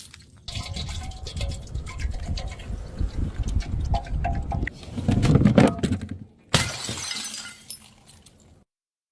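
Glass bottles being smashed: dense shattering and crackling of breaking glass with clinking shards, a louder burst about five and a half seconds in, and sudden cuts to silence between bursts.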